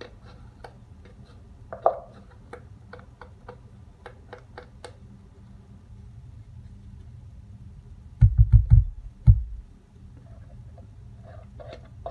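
Light clicks and taps of a plastic cup and spatula against a plastic mixing bowl as clay and essential oil are added to the soap batter, with a loud cluster of four or five dull thumps about eight seconds in.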